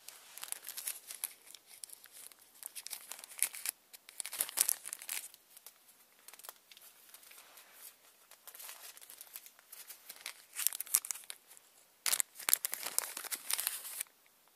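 Clear plastic bag crinkling as it is handled and opened to get at a new O-ring, in irregular bursts of crackling with two louder spells.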